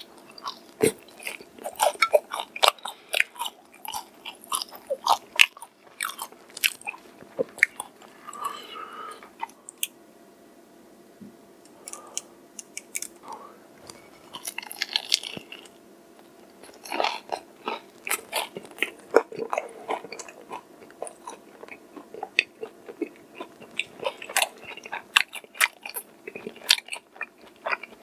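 Close-miked crunching and chewing of crispy fried chicken: sharp crackles of the battered coating as bites are taken. There are two dense runs of crunching, with a quieter stretch of chewing in the middle.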